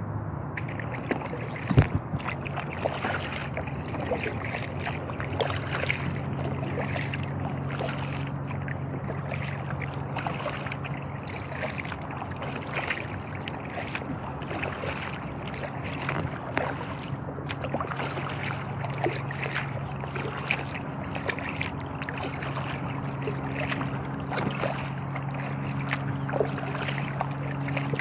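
Kayak paddle strokes on an inflatable kayak, water splashing and dripping in irregular small bursts. A steady low hum runs underneath from a few seconds in.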